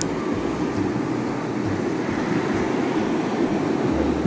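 Steady rushing noise of wind blowing over the microphone, mixed with sea surf.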